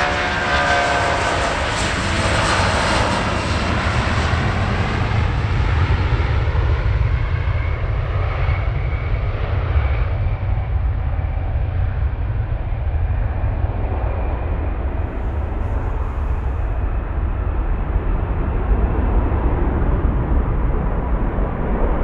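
Boeing 757's Rolls-Royce RB211 jet engines at take-off thrust as the aircraft rolls past, their whine falling in pitch in the first few seconds. A heavy, steady rumble carries on while it lifts off and climbs away, the higher sound fading.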